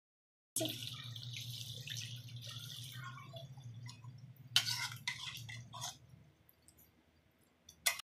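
Chicken curry bubbling and sizzling in a pan, over a steady low hum. A few short scrapes of a spatula against the pan come around the middle, and a sharper one comes at the very end.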